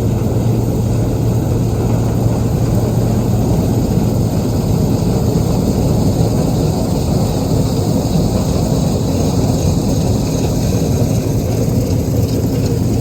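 1997 Gleaner R62 combine running steadily while harvesting soybeans, a constant low engine and machinery drone heard from inside the cab.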